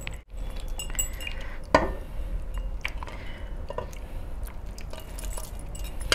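Metal clinks and light knocks from a large metal bowl being tipped to pour gravy over chicken, with the rings and bracelets on the hands holding it clinking against the bowl; one louder knock comes a little under two seconds in.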